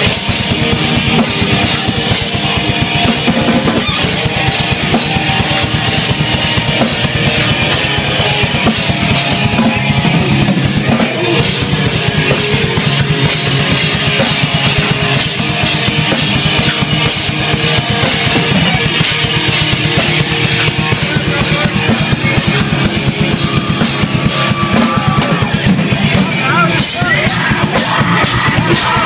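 Live rock band playing loud and fast: pounding drum kit under electric guitar, a dense unbroken wall of sound.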